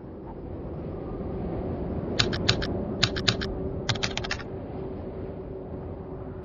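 Keyboard typing sound effect: three quick runs of key clicks, over a low steady drone that swells during the first two seconds.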